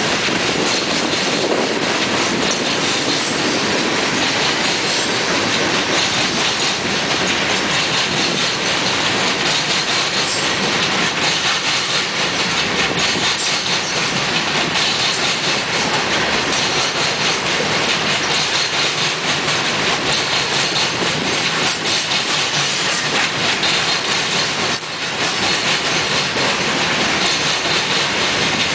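Coal cars of a unit coal train rolling past, a steady rumble of steel wheels on rail with clicking over the rail joints.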